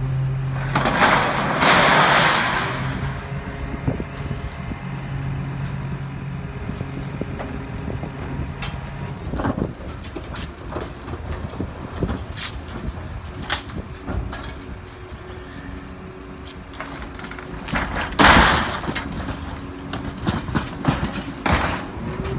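Hino FM 500 rear-loader garbage truck's bin lifter tipping a bulk bin of recyclable bottles and cans into the hopper. The contents crash in about a second in, over a steady drone from the truck that drops away about nine seconds in. Clanks and knocks of the lifter and bins follow, with another loud rush of noise near the end.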